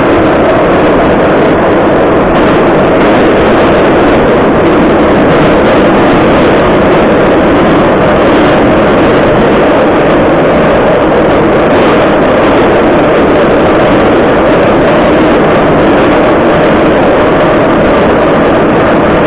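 Moscow Metro 81-717.5 'Nomernoy' car running at speed, heard from inside the passenger cabin: a loud, steady rumble of wheels on rails and running gear that holds unchanged throughout.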